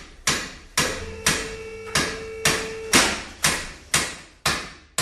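Hammer blows struck steadily, about two a second, each blow sharp and dying away quickly.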